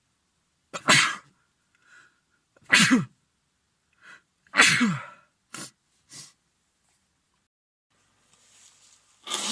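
A man sneezing in a fit from a head cold: three loud sneezes about two seconds apart, each ending in a voiced cry that falls in pitch, with short sniffs between. Near the end a breath builds into a fourth sneeze.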